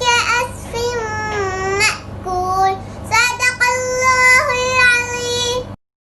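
A young girl's voice chanting Quran recitation in Arabic, with long held, melodic notes; the chant stops abruptly near the end.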